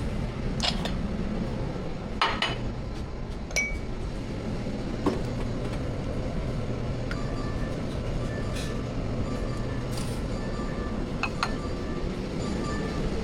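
Utensils and dishes clinking at a food stall: about eight sharp, irregularly spaced clinks over a steady low background rumble.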